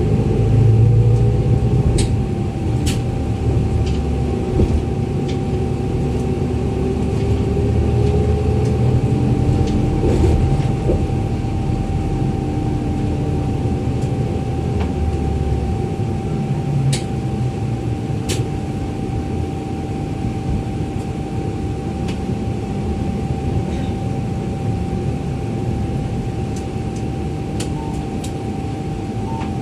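Cabin sound of a city shuttle bus on the move: the engine and drivetrain run with a rumble and a whine that rises and falls in pitch as the bus speeds up and slows, over a steady high hum. A few sharp clicks or rattles come through, and the heavy low rumble eases off about halfway through.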